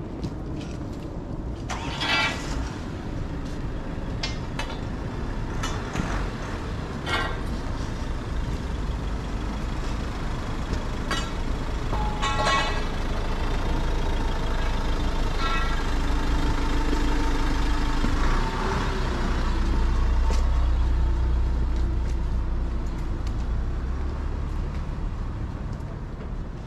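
Busy street ambience dominated by a large motor vehicle's engine running, building to its loudest about two-thirds of the way through and easing off near the end. Several short high-pitched sounds cut in over the rumble.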